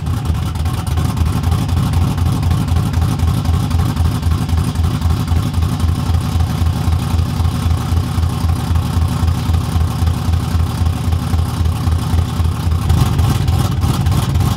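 Cammed Chevrolet Silverado V8 on open headers idling loud and uneven with a rapid pulsing lope, just after its first start. It sounds a little off, with some O2 sensors not yet reinstalled, and gets a bit louder with a light rev near the end.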